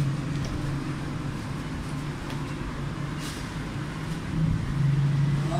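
Steady low engine hum, growing louder for about a second near the end, with a few faint taps.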